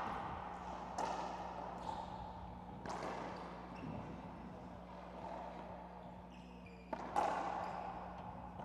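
Racquetball rally: sharp cracks of the ball struck by racquets and hitting the court walls, each ringing on in the enclosed court. Hits come about a second in and about three seconds in, then two in quick succession near the end, the loudest.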